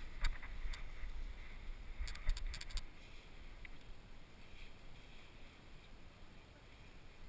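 Handling noise from a GoPro mounted on a dog's harness as the dog moves across grass: clicks and knocks of the camera housing with a low rumble for about the first three seconds. Then the dog stands still and only a faint steady hiss remains.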